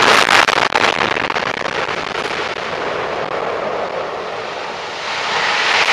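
Explosive demolition of a concrete power-station cooling tower: a rapid crackle of charges and their echoes, then a steady loud rumble as the tower collapses, swelling again near the end.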